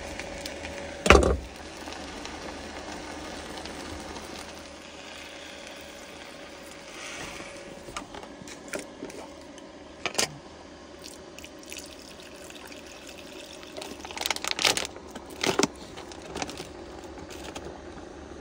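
Cooking sounds at a wooden cutting board: one loud knife knock about a second in, then scattered clicks and knocks as ingredients go into the simmering electric pot, with a cluster of sharp clicks near the end, over a steady faint hiss.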